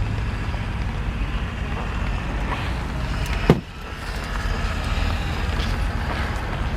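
Steady low rumble of a vehicle running, with one sharp knock about three and a half seconds in.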